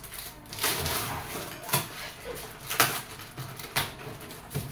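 Cardboard air-fryer carton being opened by hand: packing tape peeled and cardboard flaps pulled open, rustling, with a sharp rip or snap about once a second.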